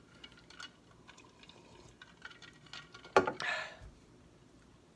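Eating sounds: scattered small clicks from chewing and handling food, then a short, loud vocal noise from the eater about three seconds in.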